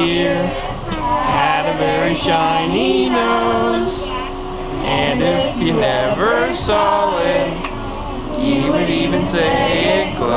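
Music with a group of voices singing a song together, held notes moving in steps.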